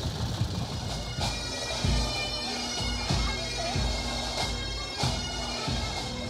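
Bagpipes playing a tune over a steady drone, with a few drum beats.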